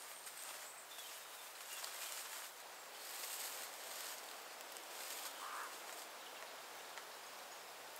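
Dry straw thatch rustling and crackling as it is handled and knelt on.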